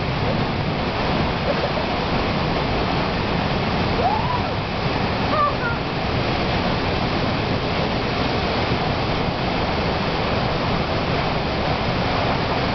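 Waterfall pouring into a canyon pool close by, a dense steady rush of falling water.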